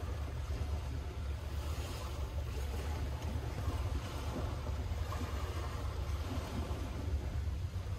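Steady low wind rumble on the microphone, mixed with the wash of surf.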